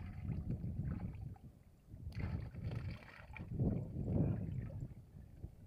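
Water splashing and sloshing as a wire-mesh fish trap full of tilapia is tipped and moved through shallow water, loudest about two seconds in and again around four seconds in.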